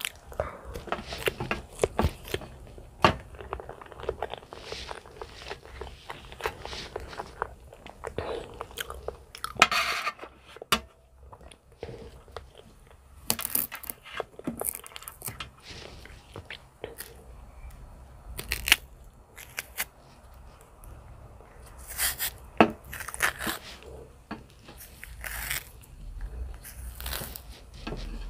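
Close-miked mouth sounds of a person biting and chewing soft banana: wet smacks and sharp clicks at irregular intervals.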